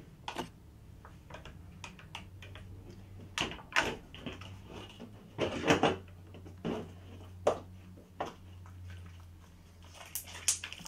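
Glue slime with borax activator being kneaded and squeezed by hand on a table: irregular short sticky squelches, snaps and taps, a few louder ones in the middle, over a faint steady low hum.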